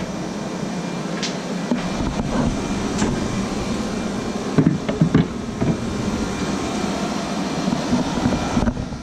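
Steady, even background noise like a running fan, with a few short knocks clustered about halfway through.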